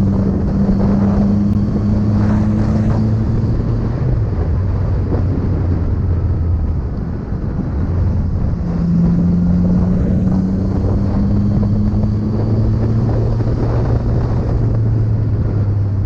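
Motorcycle engine running at road speed, with wind rushing over the microphone. The engine note drops back about seven seconds in, then rises steadily as the bike speeds up again.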